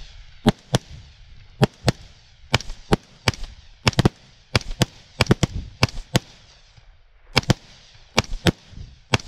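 Rapid, irregular volley of rifle shots from several shooters at once, about twenty shots in clusters, each crack trailing off in an echo.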